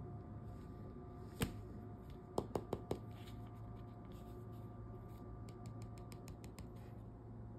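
Fingers handling and tapping a Zuru Snackles toy capsule ball as it is turned over. There is one sharp tap about a second and a half in, a quick run of four taps soon after, and a patter of faint ticks near the end, over a steady low hum.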